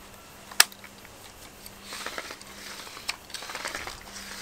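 Ink line reel (먹통) being cranked, its line drawn back and forth through the ink-soaked reservoir to ink the line: a sharp click about half a second in, then a run of fast small clicks and scratchy rattling from about two seconds in.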